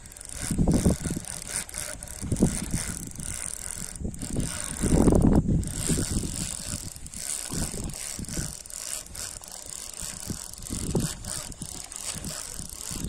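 Spinning reel being cranked on a lure retrieve, its gears and bail clicking steadily. A few dull thumps come through, the strongest about five seconds in.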